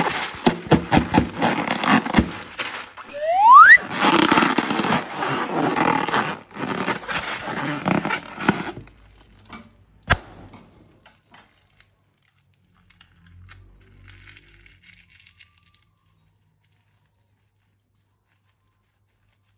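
Slime being worked by hand, crackling, clicking and squelching, with one short rising squeak about three seconds in. The crackling stops at about the halfway point, leaving a few scattered clicks and then quiet.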